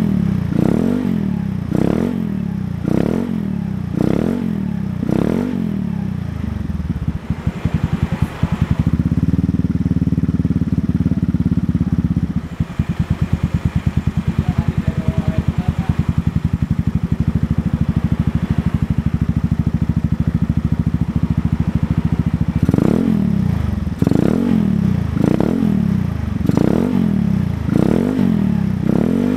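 Single-cylinder four-stroke 110cc automatic scooter engine breathing through a Kenochi aftermarket racing exhaust, blipped about once a second, held at steady higher revs for a few seconds, then idling for about ten seconds before being blipped again near the end.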